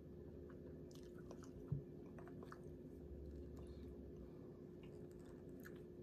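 A person chewing fries and barbecue turkey tips, with faint clicks and scrapes of a plastic fork in a foam takeout box. A single dull thump comes about two seconds in, over a steady low hum.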